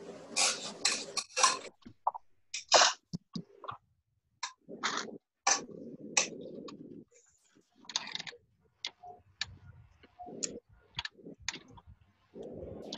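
Irregular sharp clicks and taps, with a couple of short stretches of rustling noise.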